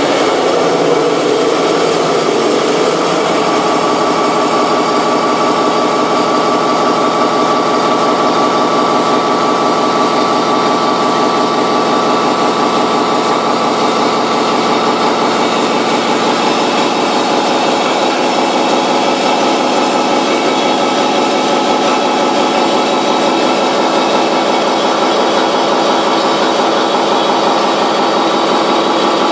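Milling cutter on a CNC machining centre's horizontal spindle taking a heavy, high metal-removal-rate cut in a metal workpiece: a loud, steady pitched whine from the cutter teeth over a grinding rasp, unchanging as the cut goes on.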